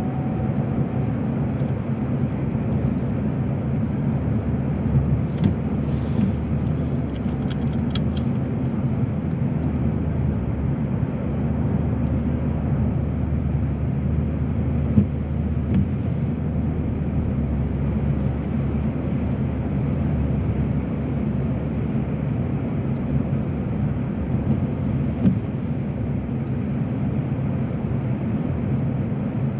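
Steady road and engine rumble heard from inside the cabin of a car driving along, with a few faint ticks about five to eight seconds in.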